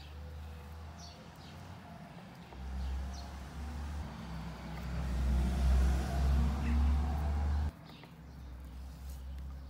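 Low engine rumble of a nearby motor vehicle, swelling louder about two and a half seconds in and dropping away suddenly near the end.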